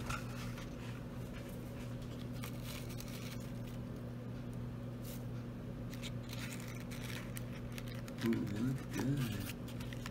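Faint rustling and light clicks of a thin plastic deli cup and the paper towel inside it being handled, over a steady low hum. A brief low voice murmurs about eight seconds in.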